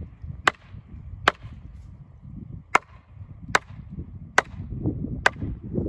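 Long-handled hammer striking the top of a thin sassafras pole, driving it into the ground as a gate post: about seven sharp wooden knocks, roughly one a second, with a short pause about two seconds in.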